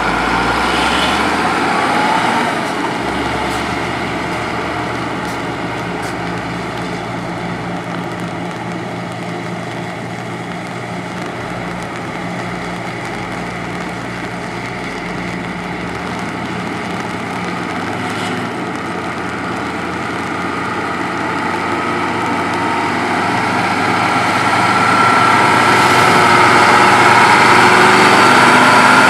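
Heavy diesel road-construction machinery running steadily, growing louder over the last several seconds.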